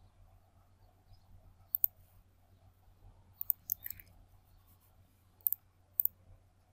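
Computer mouse buttons clicking: a quick double click, a cluster of several clicks about halfway through, then two single clicks, over a faint steady low hum.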